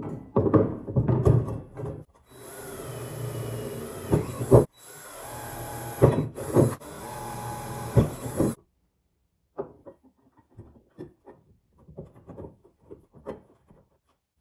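DeWalt 20V cordless drill boring small holes through a mild-steel plate. It runs in two steady spells of a couple of seconds each, with knocks and clatter around them, and stops suddenly about eight and a half seconds in. Light clicks and taps follow as the steel pieces are handled.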